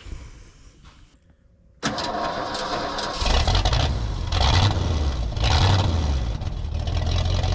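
Engine of the LT35 sawmill starting: a short spell of cranking from about two seconds in, then it catches and runs steadily with a low rumble.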